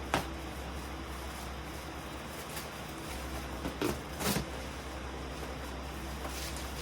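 Handling noise from the fan parts being examined: a sharp click just after the start and two or three short knocks about four seconds in, over a steady hiss and low hum.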